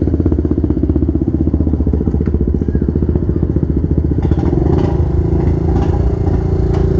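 Motorcycle engines with aftermarket exhausts running loudly with a fast, even pulsing rumble. About four seconds in, a second engine's smoother, steadier note joins.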